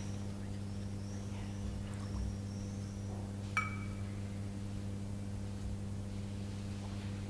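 A steady electrical mains hum, with a single sharp, ringing clink of altar vessels being handled about halfway through.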